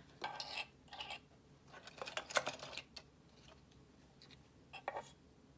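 Small plastic cake-topper figurines handled and set down on a wooden board: scattered light clicks and taps, a few close together about two seconds in and another pair near the end.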